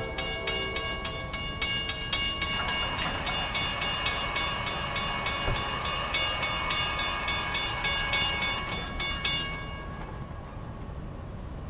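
Railroad grade-crossing warning bell ringing at about three strikes a second, then stopping about nine and a half seconds in as the crossing gates rise to clear the crossing.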